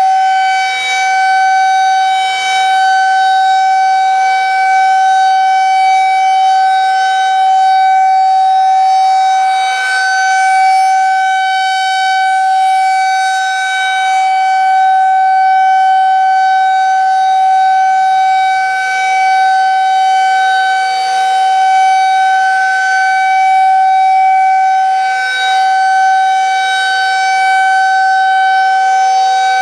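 Federal Signal 2001-SRN outdoor warning siren sounding a steady tone at full speed for a test, holding one pitch without winding down, its loudness slowly swelling and fading as the rotating horn sweeps past.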